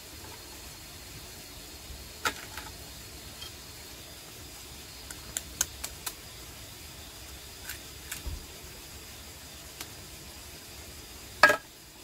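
Scattered light clicks and taps of a spoon and tableware being handled while eating, then one loud clatter near the end, over a steady hiss.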